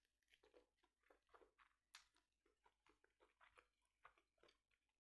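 Faint close-up chewing: soft, irregular mouth clicks and wet squishes of someone eating.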